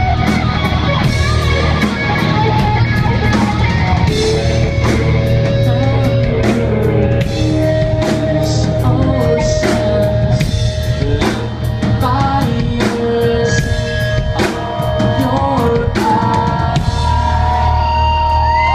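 Post-hardcore rock band playing live: a drum kit with frequent cymbal and snare hits, electric guitars, and sung vocals, heard from the audience floor.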